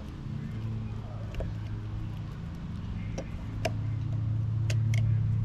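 A motor vehicle's engine running with a steady low hum that swells in the last couple of seconds, over a few scattered light clicks and taps.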